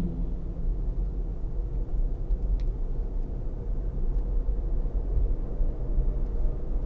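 Steady low road and tyre rumble heard inside the cabin of a Tesla Model Y, an electric car, cruising on a two-lane road. A faint click sounds about two and a half seconds in.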